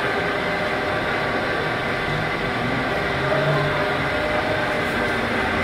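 Tuda metal lathe running, its chuck spinning steadily: the geared headstock gives a steady whine over the motor's mechanical hum.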